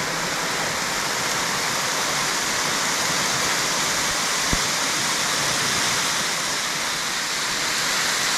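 Waterfall: steady, even rush of falling water. A single brief knock about halfway through.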